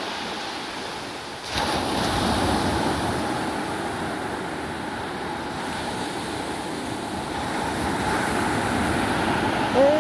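Ocean waves washing onto the beach at high tide, with a wave breaking about one and a half seconds in and steady surf after it.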